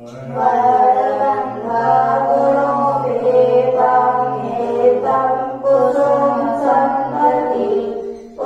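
Buddhist devotional chanting: sung voices recite in long melodic phrases, with short breaks for breath.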